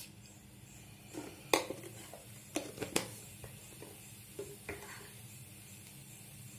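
Mustard and cumin seeds spluttering in hot oil in a pan: about eight scattered sharp pops, most of them in the first five seconds.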